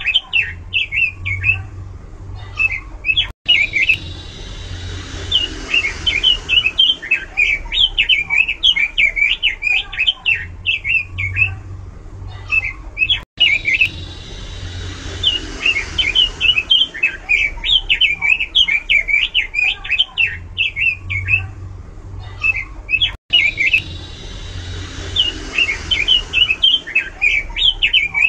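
Pekin robin (red-billed leiothrix) singing loud, rapid warbling phrases of quick rising and falling notes. The same stretch of song repeats about every ten seconds, with a brief cut before each repeat.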